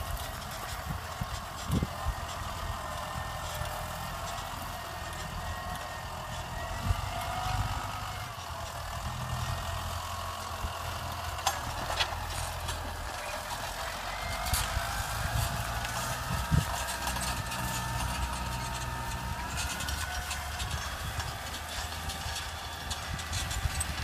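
Massey Ferguson 6480 tractor's six-cylinder diesel engine running steadily under load while pulling a plough, a low rumble with a higher whine that drifts up and down in pitch.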